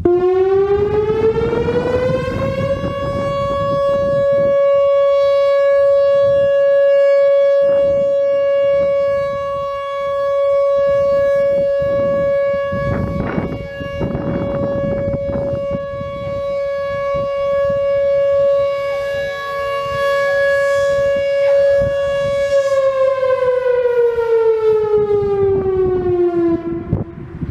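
Whelen WPS-4004 electronic outdoor warning siren sounding its steady alert tone. It rises over about two seconds to a held pitch near 560 Hz, holds it for about twenty seconds, then winds down in pitch over the last few seconds.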